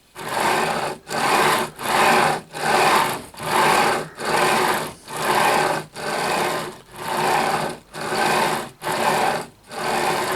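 Linear rail bearing carriages rolling under a CNC router table as it is moved quickly back and forth along the rails: a rolling hiss on each stroke, about three strokes every two seconds, with a brief gap at each reversal. The run is smooth, with no rock or flex in the bed.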